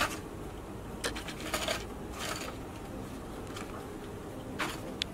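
Kraft paper and cardboard packaging handled: a few short rustles and scrapes as it is moved and set on a shelf, with a light click near the end.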